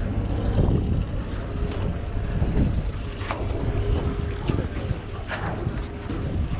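Wind rumbling on the microphone and water slapping against a small boat's hull on choppy sea, with a few faint short sounds over it.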